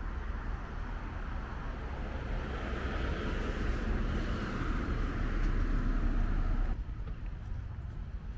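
Street traffic noise: a passing vehicle's tyre and engine noise grows louder over a few seconds, then drops off suddenly about a second and a half before the end.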